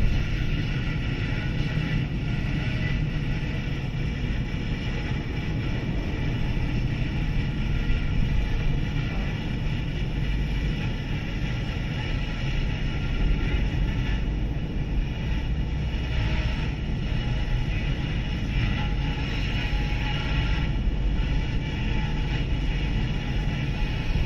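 Steady low rumble of road and engine noise heard from inside a car driving through a road tunnel. It is even throughout, with small swells in loudness.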